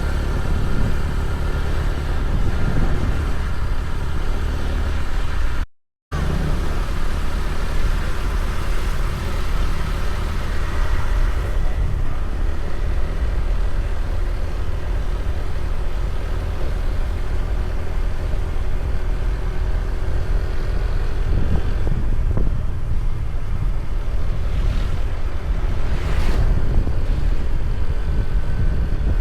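Vehicle on the move: a steady low engine and road rumble with wind buffeting the microphone. The sound cuts out completely for a moment about six seconds in.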